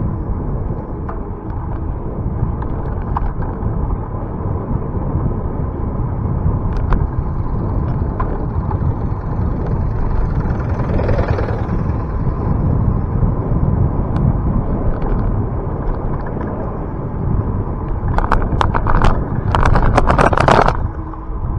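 Wind rushing on the microphone and a steady low rumble of riding a bicycle on a country road. About halfway there is a brief swell, and near the end a run of sharp rattling clicks.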